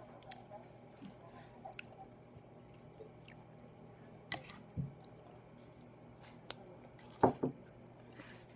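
Eating sounds: soft wet mouth noises, with a few sharp clicks and two short low thumps, over a steady electrical hum.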